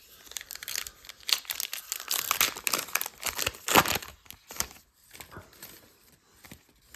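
Baseball card pack wrapper from a Topps Archives blaster box being torn open and crinkled by hand: a dense run of crackling for about four seconds, then a few softer rustles.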